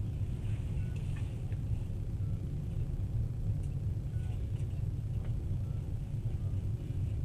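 Passenger train running at speed, a steady low rumble of wheels on rails heard from inside the carriage, with a few faint ticks.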